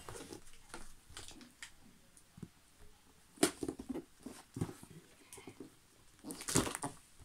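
A flat cardboard box being lifted and turned over in the hands: scattered rustles, scuffs and knocks of cardboard, the loudest about three and a half seconds in and again near the end.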